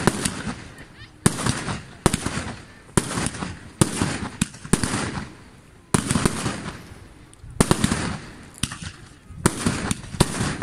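Aerial firework shells bursting one after another: about a dozen sharp bangs at irregular intervals of roughly a second, each trailing off over a moment before the next.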